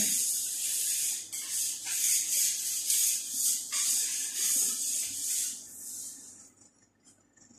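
Quick rubbing strokes, a scratchy hiss repeated two or three times a second, like a scraper worked over a plastic-wrapped worktable; it dies away about six seconds in.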